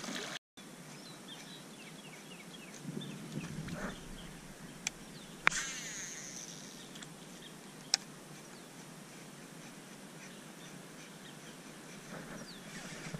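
A small splash at the very start as a small bass drops back into the water. A few seconds later comes a cast with a baitcasting reel: a sharp click, then the spool whirring for about a second as line pays out, and another click a couple of seconds later as the reel is engaged. Birds chirp faintly in the background.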